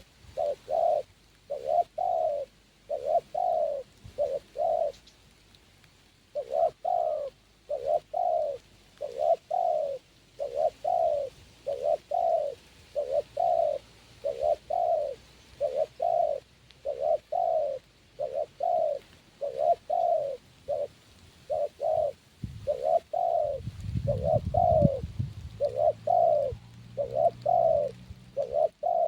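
Spotted dove cooing over and over, in short coos of about two a second, with one pause about five seconds in. A low rumble comes in about three-quarters of the way through.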